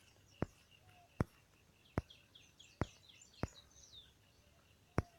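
Faint background bird chirping, short downward-sweeping notes, with a sharp click roughly every second.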